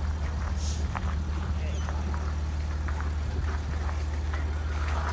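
Steady low hum of an idling engine, with scattered clicks and clatter of dog crates being handled and a few faint dog yips.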